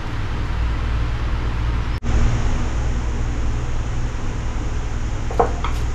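Steady low rumbling background noise with no speech, broken by a brief dropout about two seconds in, with two light clicks near the end.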